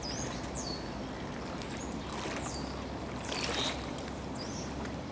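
Steady rushing outdoor noise, with a small bird giving several quick, high chirps that slide downward.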